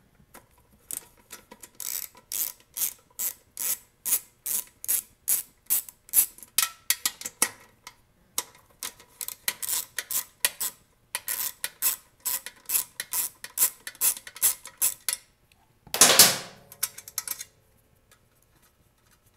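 Hand ratchet and socket clicking in a steady run, about three clicks a second, as it backs out the blower-housing bolts on a lawn mower engine, with two short pauses. About sixteen seconds in comes one louder clatter of metal.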